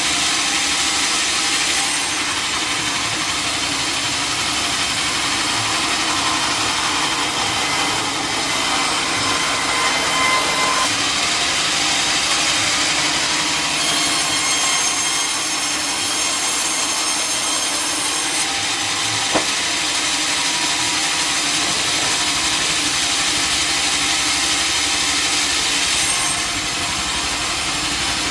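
Sawmill saw cutting lengthwise through wood: a steady, high-pitched cutting noise whose upper tones shift a few times as the cut goes on, with one sharp knock about two-thirds of the way through.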